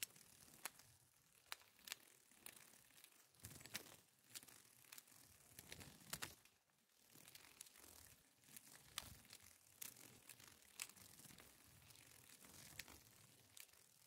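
A peacock butterfly's wings flapping close to the microphone: faint, irregular dry clicks and soft rustling.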